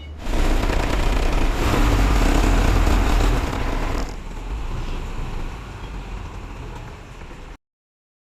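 Dump truck engine running loudly for about four seconds, then somewhat quieter, until the sound cuts off abruptly near the end.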